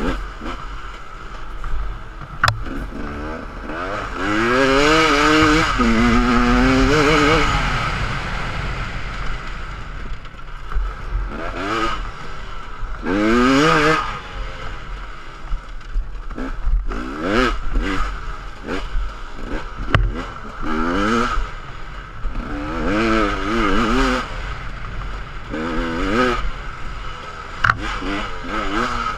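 Two-stroke 250cc enduro motorcycle engine revving hard on a trail ride, its pitch climbing and falling again and again as the rider gets on and off the throttle, with wind rushing over the helmet-mounted microphone. The longest, loudest pulls come from about 4 to 8 seconds in and again just after 13 seconds.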